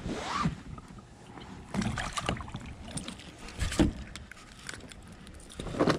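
Irregular knocks, bumps and rustles of someone moving and handling gear on a bass boat's carpeted deck, over a low rumble of wind on the microphone.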